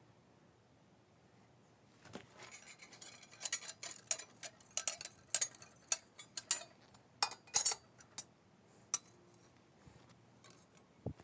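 Metal pieces clinking and clattering against each other: a quick run of sharp knocks and chinks starting about two seconds in, thinning to a few scattered clicks near the end.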